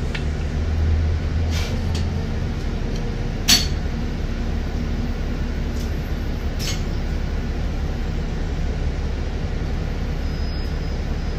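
Low, steady rumble of a slowly moving car heard from inside, with a few sharp clicks, the loudest about three and a half seconds in.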